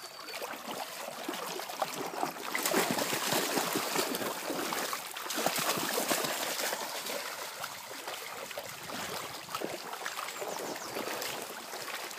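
Shallow stream running, with uneven splashing and sloshing as a cocker spaniel wades through it. The water is louder for a few seconds in the middle.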